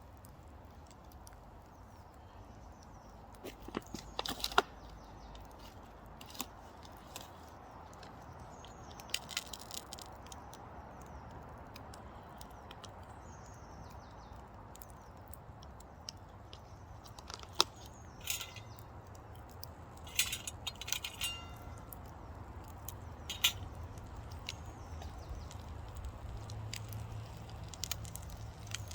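Campfire embers crackling with scattered sharp pops and clicks over a steady low background rumble.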